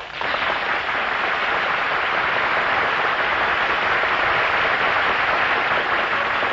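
Studio audience applause, starting suddenly and holding steady.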